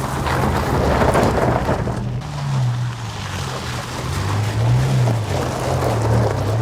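2024 Toyota Tacoma TRD Pro's i-FORCE MAX engine running while driving, its pitch rising and falling several times with the throttle, over heavy wind and road or gravel noise.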